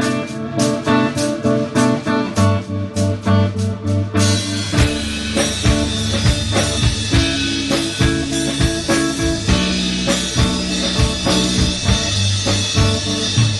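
Instrumental song intro: a guitar plays an evenly spaced picked or strummed pattern, then drums and the rest of the band come in about four seconds in.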